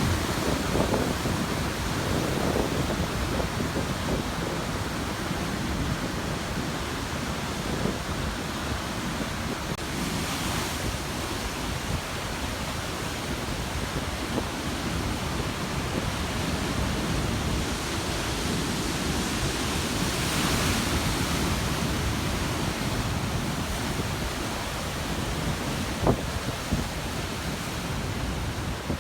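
Heavy Atlantic surf crashing and churning on a rocky shore at high tide: a continuous rushing wash with bigger breakers about ten seconds apart, and wind buffeting the microphone. A single sharp knock near the end.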